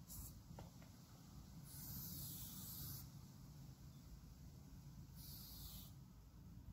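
Aerosol spray-paint can hissing in separate bursts: a brief one at the start, a longer one of over a second about two seconds in, and another shorter one about five seconds in.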